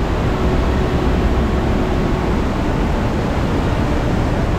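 Loud, steady roar of Niagara Falls' Bridal Veil Falls crashing onto the rocks close by, an unbroken rushing noise heavy in the low end.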